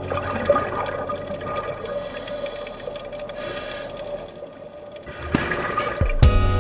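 Instrumental passage of a pop song's soundtrack: soft sustained synth tones, with a swell that rises near the end into a sudden new held chord.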